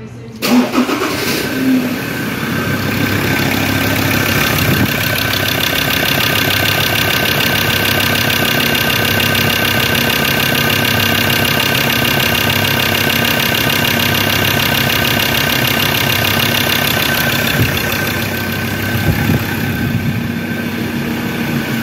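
Ford Ranger PX / Mazda BT-50 diesel engine starting, catching about half a second in, then idling steadily.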